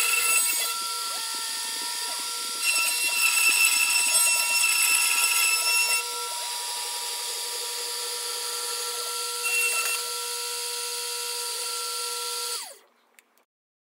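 Dremel rotary tool with an engraving bit, running on a homemade CNC machine and milling grooves into particleboard: a steady high motor whine with cutting noise, louder in stretches. Near the end it is switched off, its pitch falling quickly as it spins down to silence.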